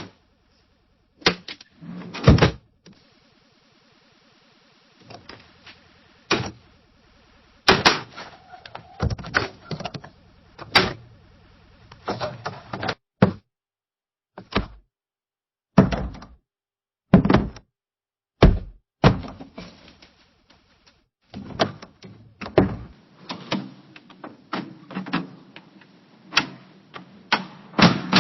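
Windows being opened and shut, several in turn: sharp thunks and knocks of the frames closing, with rattling and sliding in between.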